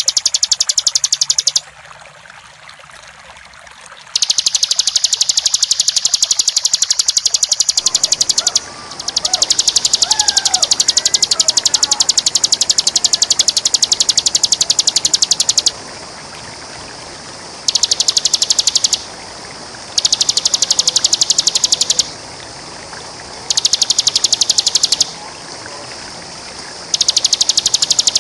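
Bar-winged prinia (ciblek) singing its rapid, buzzing, drill-like trill, the 'ngebren' song, in long high-pitched bouts of several seconds with short pauses, the bouts shorter and more frequent in the second half.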